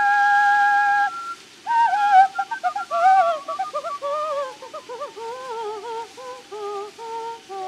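Operatic soprano singing an ornamented coloratura passage: a high held note, a short break about a second in, then fast runs and trills that step downward to a lower held note near the end.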